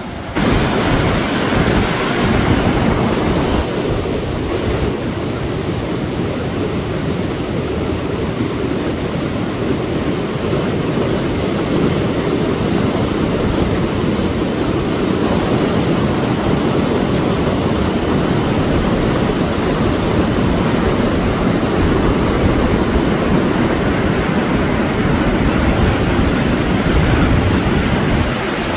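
Whitewater rapid rushing steadily, a deep continuous roar of water, with some wind buffeting the microphone.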